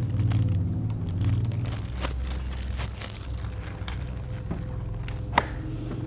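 Plastic parts of 1:18-scale toy vehicles being handled and pressed together, with a few sharp clicks, the loudest about five seconds in, over a low steady rumble.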